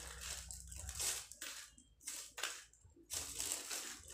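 Dry, crumbly pellet-based carp bait mix being scooped by hand from a plastic tray into a small plastic bag: gritty crunching and rustling of the grains against the bag in about half a dozen short scoops.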